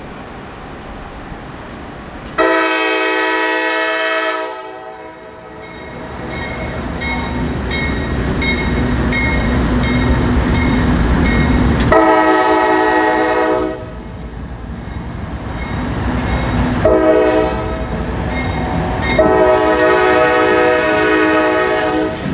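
Norfolk Southern freight diesel locomotive sounding its multi-chime air horn in four blasts, long, long, short, long, the grade-crossing signal. Between the blasts the heavy diesel engine rumble builds as the lead unit pulls past at low speed.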